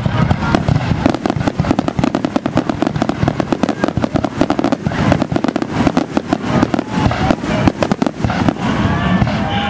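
Fireworks finale: a rapid, continuous barrage of aerial shell bursts, many loud bangs a second, thinning slightly near the end.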